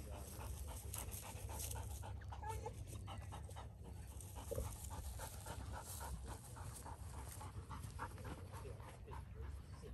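A black retriever panting rapidly close by, over a steady low rumble.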